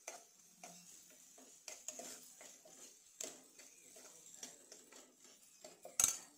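Steel spoon stirring chopped onions in a nonstick pan, scraping and clinking against the pan in irregular strokes, with the loudest knock about six seconds in.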